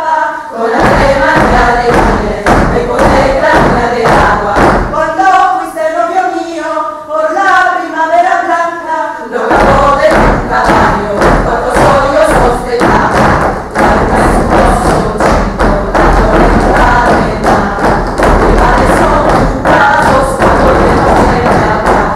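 Rhythmic thumping on a wooden stage floor by a group of performers, about three knocks a second, with a group of voices singing over it. About nine seconds in, the singing drops away and the thumping grows denser and heavier.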